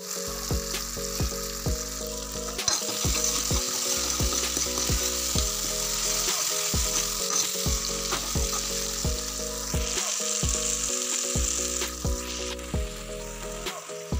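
Onion-and-tomato masala frying in hot oil in a metal kadai for a tadka, sizzling steadily while a steel ladle stirs it. The sizzle grows louder about three seconds in and eases off near the end.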